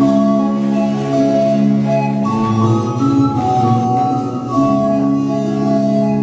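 Instrumental music playing, with long held chords that change every second or two.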